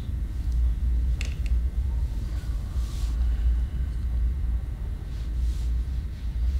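Deep, steady low rumble, a horror-film sound-design drone, with a faint creak about a second in.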